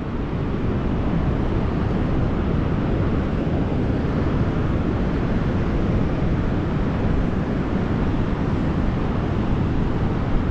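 Steady rush of Pacific Ocean surf mixed with wind buffeting the microphone.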